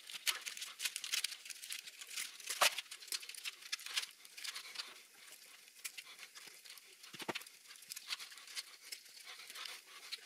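Bahco piano wire cutters snipping through fine metal sieve mesh: an irregular run of small, sharp clicks, with a few louder snips about two and a half and seven seconds in.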